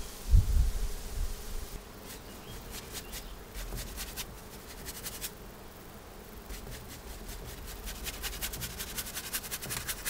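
Short scratchy ticks of a paintbrush dabbing and stroking oil paint on canvas, coming in clusters and growing dense near the end. A low wind rumble on the microphone and a thump come just at the start.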